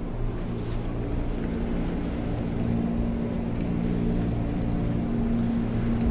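Electric commuter train running: a steady low rumble with a motor hum that grows stronger in the second half, and a thin steady high whine.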